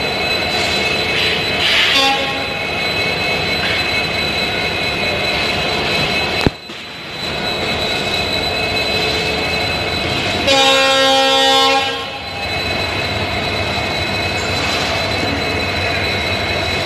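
Arriving express train at a station: a steady rumble and hum, with a short horn toot about two seconds in and a locomotive horn blast held for about a second and a half starting near ten and a half seconds in. A sharp knock comes about six and a half seconds in.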